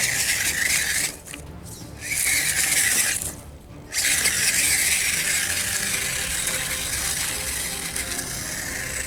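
Small electric motor and gearbox of a 1/18-scale Temper 4WD Gen 2 RC rock crawler whirring as it drives, stopping briefly twice in the first four seconds and then running steadily.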